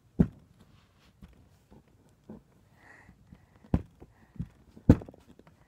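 Screwdriver tip chipping and scraping at a hard excavation-kit block, giving irregular sharp knocks and small clicks, the loudest near the end.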